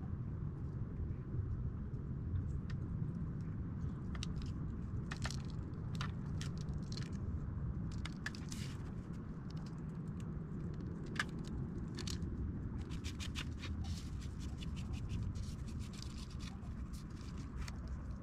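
Steady low rumble of a fast-flowing river's ambience, with scattered small clicks and scratches that grow thicker in the second half.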